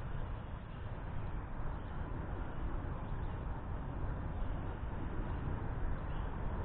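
Steady outdoor background noise, mostly a low rumble, with no distinct events.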